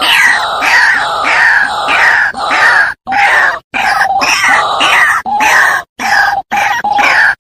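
White-breasted waterhen calling: loud, harsh 'kwak' notes repeated about two to three a second in runs, broken by a few brief gaps.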